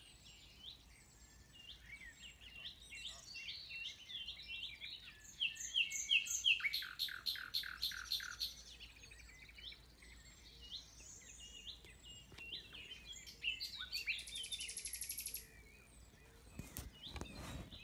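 Common nightingale singing: varied phrases of short repeated notes, a loud run of fast repeated notes about six to eight seconds in, and a high buzzy trill near fifteen seconds. A few sharp knocks come near the end.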